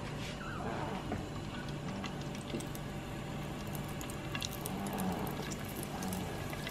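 Hot oil bubbling and crackling in a stainless steel stockpot as flattened green-plantain slices (tostones) fry, the sizzle growing busier about halfway through.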